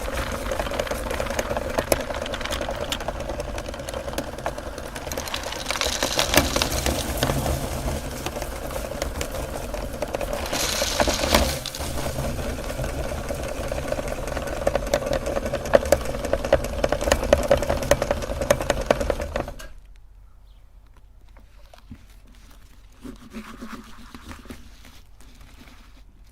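Electric meat grinder running steadily while it crunches through hard candy, with many small crackles over its motor hum. It switches off suddenly about three-quarters of the way through, leaving only a few faint clinks.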